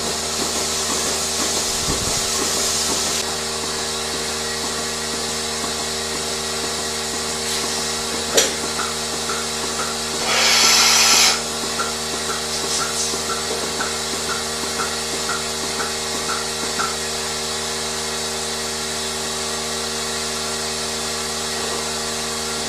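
Steady mechanical hum of dairy-barn machinery with several constant tones. A short burst of hissing air comes about ten seconds in, and a run of faint regular clicks, about one and a half a second, follows for several seconds.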